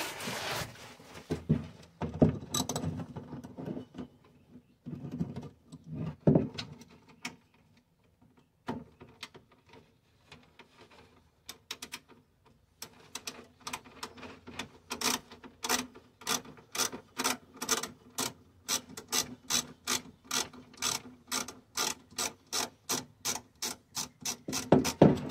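Scattered knocks and rubbing as a hand feels for a chassis bolt. Then, about halfway through, a ratchet wrench starts clicking in a steady run of about two and a half clicks a second as the 5/16 chassis mounting bolt is backed out.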